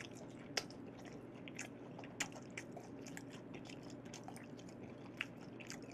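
Close-miked chewing of raw beef: scattered wet mouth clicks and smacks over a faint steady hum.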